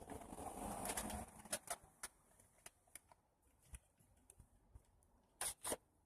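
A dove cooing faintly in the first second, then quiet broken by a few scattered light clicks and taps, with two louder ones near the end.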